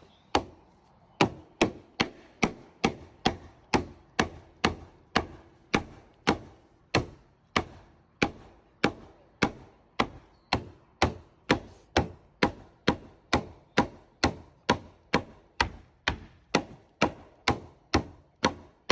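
Hammer blows on wood, struck in a steady rhythm a little over twice a second, each a sharp loud crack with a brief ring.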